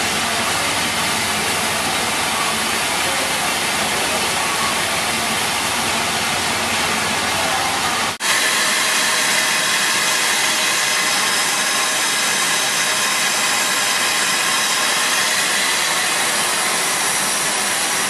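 Standing steam locomotive hissing steadily, with steam escaping low beside its cylinders. About eight seconds in the sound breaks off for a moment and resumes as a brighter, sharper steady hiss.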